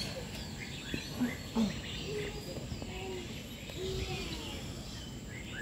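Songbirds calling all around: many short chirps and whistled notes overlapping, some rising or falling in pitch.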